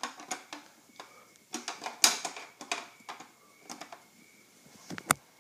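Hard plastic parts of a water ionizer's cleaning canister and filter housing being handled and fitted together: an irregular string of sharp clicks and knocks, the loudest about two seconds in and another near the end.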